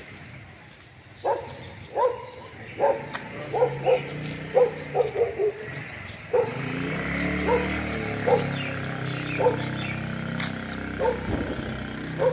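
A dog barking over and over, short sharp barks about once a second, sometimes two or three in quick succession. From about six seconds in, a steady low hum runs underneath.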